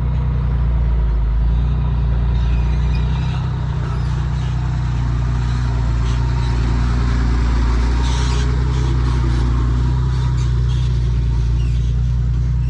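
Excavator's diesel engine idling steadily with a low, even hum.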